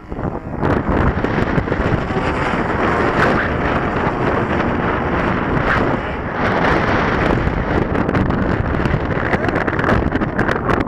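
Strong gusty wind buffeting the microphone, with a model airplane's single-cylinder two-stroke DA35 gas engine droning faintly underneath, its pitch wavering as the plane flies.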